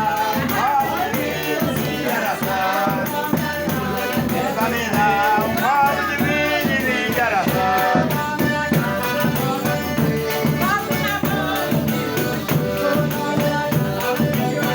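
Folk music with singing voices over rattling hand percussion that keeps a steady, fast beat.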